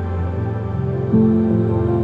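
Calm new-age background music with slow, sustained notes; a new chord enters about a second in.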